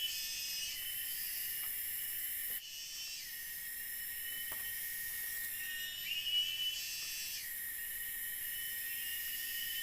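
Forest insects chirring in a steady high-pitched chorus, with a repeating chirping call about every five seconds; the chorus cuts out briefly about two and a half seconds in.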